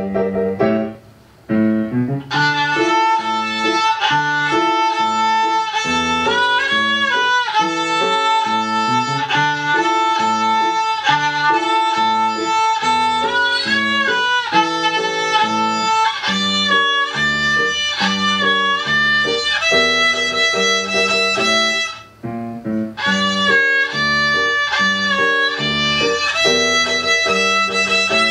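Child playing a small violin, bowing a tune in short notes over an accompaniment, with brief pauses near the start and again about three-quarters of the way through.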